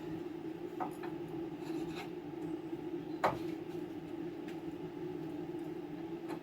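Light scraping and small clicks of hand work on metal parts over a steady low hum, with one sharper knock about three seconds in.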